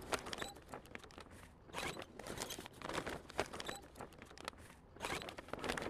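A jib being hoisted up a roller-furler headstay: irregular rustling of the sailcloth and scattered clicks from the rigging, coming in several short flurries.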